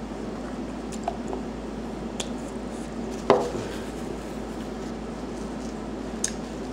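Plastic food wrapping and a plastic container handled on a table: a few light clicks and rustles, with one sharper knock about three seconds in, over a steady room hum.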